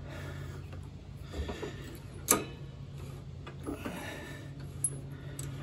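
Light metallic clicks and taps of brake hardware being handled on a lawn tractor's disc brake bracket, with one sharper click about two seconds in, over a steady low hum.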